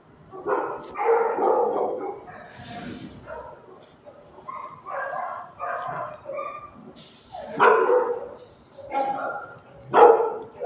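Shelter dogs barking and yipping in irregular bursts, several barks overlapping, loudest about eight and ten seconds in.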